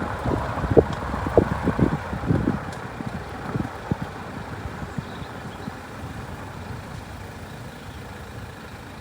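A vehicle running, with a quick run of low thumps for the first three seconds that then settles into a steadier, quieter noise.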